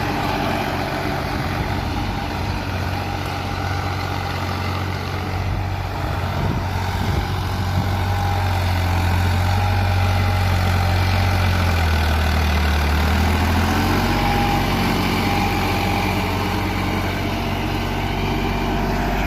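Indo Farm tractor's diesel engine running steadily while working a rotavator, its note shifting about two-thirds of the way through.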